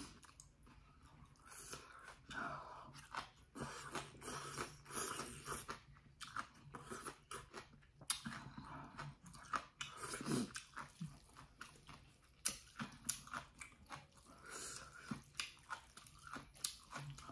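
Close-up chewing of bibim jjolmyeon, chewy cold noodles mixed with leafy greens and kimchi, as an irregular run of short crunching and wet clicking bites.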